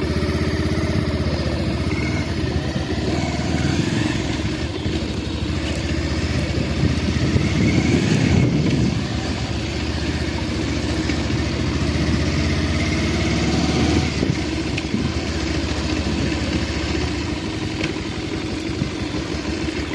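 Bajaj Pulsar 150's single-cylinder air-cooled engine running as the motorcycle is ridden slowly over a rough dirt track, its note swelling with the throttle about eight seconds in.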